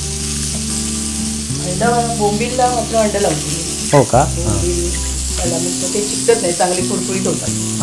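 Two rava-coated stuffed pomfrets shallow-frying in oil in a nonstick pan, sizzling steadily. Pitched, gliding tones sound over the sizzle now and then, the sharpest about four seconds in.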